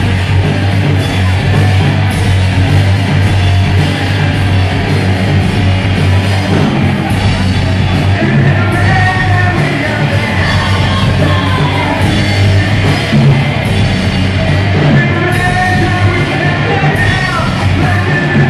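A live rock band playing loud, with electric guitars. A voice comes in about halfway through, singing and yelling over the band.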